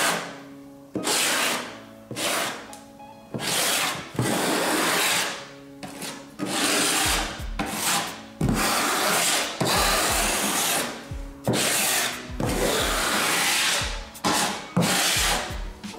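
Notched steel trowel scraping vinyl-flooring adhesive across a chipboard subfloor, a rough rasping scrape with each stroke, about one stroke a second in an uneven rhythm.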